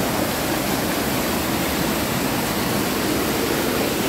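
Steady rush of a waterfall, falling water making a constant even roar with no breaks.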